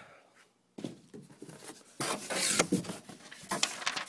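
Cardboard packaging and paper being pulled out of a shipping box, rustling and scraping after a brief pause, loudest about two seconds in.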